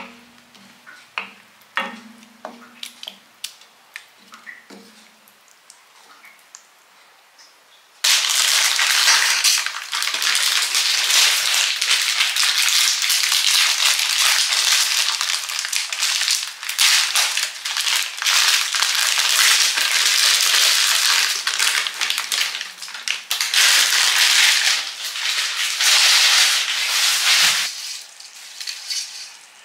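A wooden spoon clicks and knocks against a pan during stirring. About eight seconds in, a loud, steady, crackling hiss of cooking on a stove starts suddenly, and it cuts off suddenly near the end.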